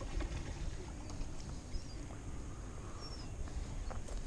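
Low wind rumble on the microphone, with scattered light clicks and a couple of faint, short, high chirps.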